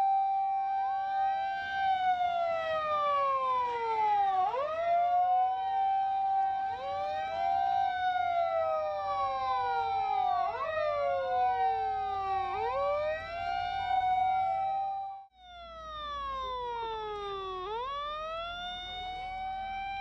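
Several fire-engine sirens wailing together, their rising and falling wails overlapping out of step. Each rises quickly, holds, then slides slowly down, repeating every few seconds. The sound cuts out briefly about three-quarters of the way through, then one wail carries on.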